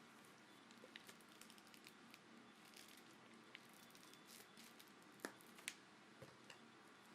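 Near silence: faint room hiss with scattered small clicks and taps, two slightly sharper ones past the middle.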